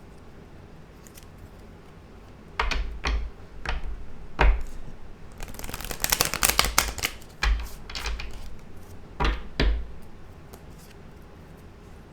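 Tarot cards being handled on a table: several sharp taps with low thuds, and about midway a dense flurry of rapid clicking and rustling like a shuffle.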